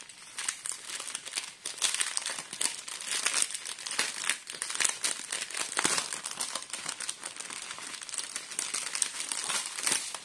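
Small plastic bags of diamond-painting rhinestones crinkling as they are handled: a dense, continuous run of sharp crackles.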